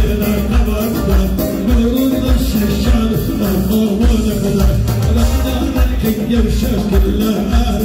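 Live dance music from a band led by an electronic keyboard, with a steady driving beat and a singer's voice over it.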